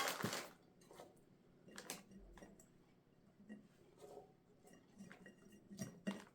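Faint, scattered clicks and light knocks of a glass jar packed with broken pine cones being handled, after a short rustle at the very start.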